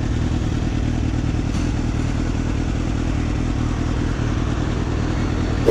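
Sport bike's engine running steadily at low revs as the bike rolls slowly through a junction.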